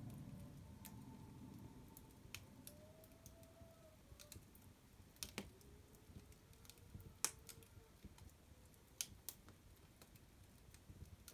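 A fire crackling: sparse, irregular sharp pops and snaps, the loudest a little past halfway.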